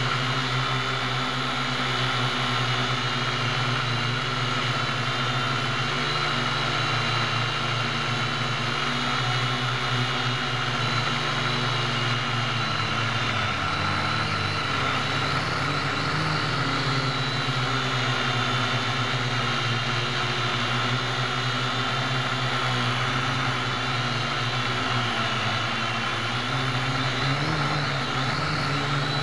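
Syma X1 quadcopter's four small electric motors and propellers whirring steadily, heard from on board the craft, their pitch wavering up and down around the middle as the throttle changes.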